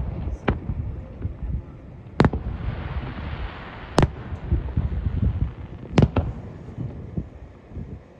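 Aerial firework shells bursting: sharp bangs about every two seconds, the last a quick double, over a low rumble.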